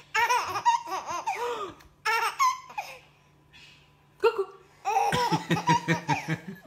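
A baby laughing hard in three bouts of quick, repeated laughs, the last and longest starting a little past the middle.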